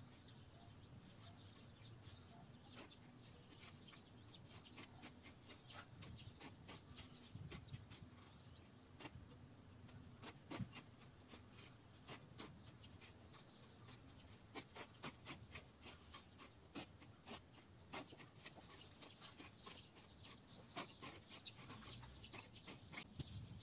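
Garden hoe chopping weeds in the soil: faint, irregular sharp chops that come more often about halfway through.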